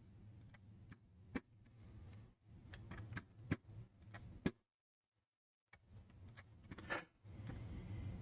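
Faint, scattered clicks of a computer mouse and keyboard over a low steady hum. The sound drops out completely for about a second midway.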